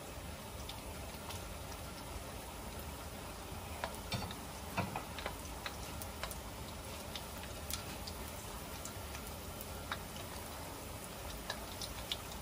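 Shrimp-and-pork paste balls deep-frying in hot oil: a steady sizzle with scattered crackles and pops.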